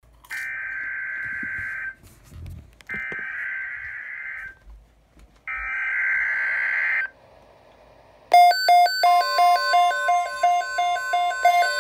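Three screechy data bursts of a NOAA Weather Radio Specific Area Message Encoding (SAME) alert header, each about a second and a half long with short pauses between them. About eight seconds in, a loud chiming alarm starts, stepping quickly between pitches, with a steady alert tone held under it.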